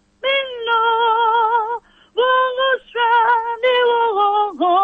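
A woman singing an Akan gospel song unaccompanied: several long held notes with a wide vibrato, separated by short breaths where the sound drops away almost to nothing.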